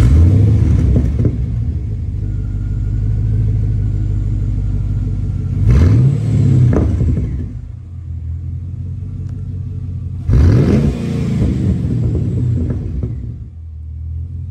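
Holden WM Caprice's LS V8 catching on start-up, then idling through a twin exhaust with the rear mufflers deleted. The throttle is blipped twice, about six and ten and a half seconds in, each rev rising and falling back to idle.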